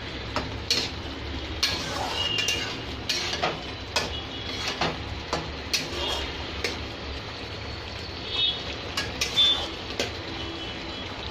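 Metal spatula scraping and knocking against a metal kadai as chicken curry is stirred, in irregular clicks and scrapes.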